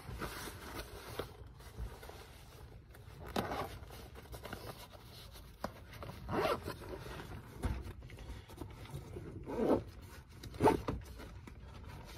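Zipper on a soft-sided lunch bag being pulled open in several separate strokes, with rustling and scraping of the bag's fabric between them.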